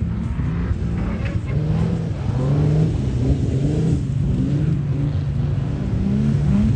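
Classic car engine running and revving, its pitch rising and falling several times over a low rumble.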